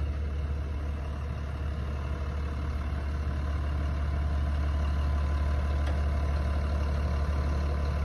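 Large farm tractor's diesel engine idling steadily, a deep even hum, a little louder from about three and a half seconds in.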